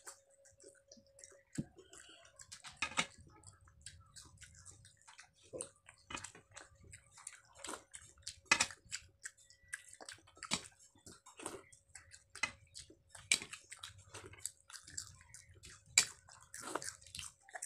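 Eating by hand: fingers squishing and mixing rice with dal on plates, with chewing and lip smacks coming as many irregular short clicks. A faint steady hum runs underneath.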